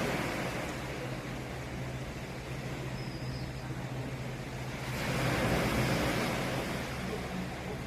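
Sea surf washing on the shore, a wave swelling up about five seconds in, over a steady low hum.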